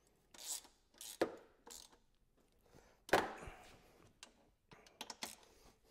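Ratchet wrench working a cargo-rack mounting bolt and its coupler nut tight: a handful of separate metallic clicks and short scrapes, the loudest about three seconds in.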